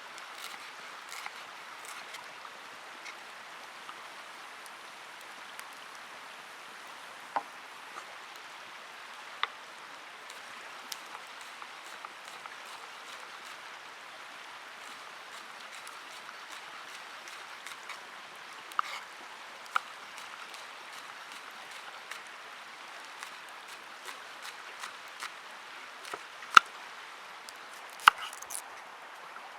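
Cooking over a campfire: a steady hiss with many small crackles and scattered sharper pops, a few of them louder near the end.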